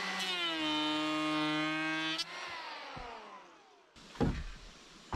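Chainsaw running at high revs, then the throttle is let off and the engine winds down and fades over a second or two. A few wooden knocks and clunks near the end.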